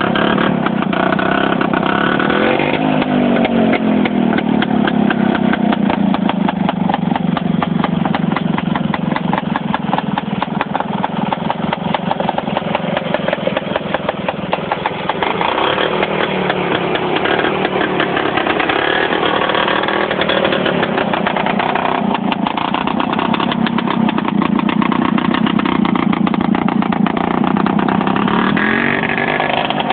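Small homemade tractor's engine running steadily while it pushes snow with its front blade, its speed rising and falling a few times, with a brief drop about halfway through.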